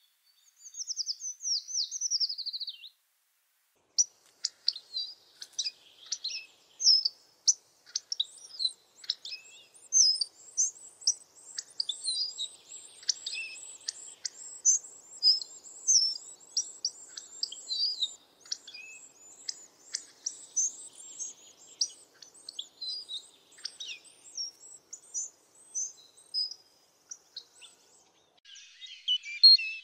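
Several songbirds singing. A single high trill falls in pitch at the start, then after a short pause comes a dense chorus of overlapping high chirps and calls.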